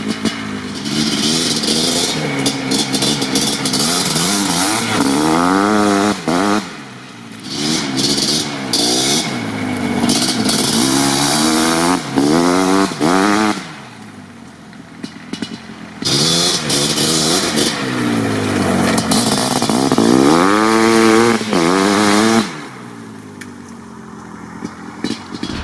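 1987 Suzuki LT500R Quadzilla's 500 cc single-cylinder two-stroke engine with an FMF Fatty pipe, revved hard under acceleration. There are three runs, each with the pitch climbing up through the gears, and the engine falls quieter between them.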